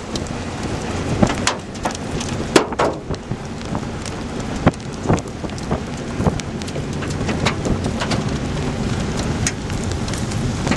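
Rain falling during a severe thunderstorm: a steady rush of noise with irregular sharp hits of drops striking close to the microphone, about one or two a second.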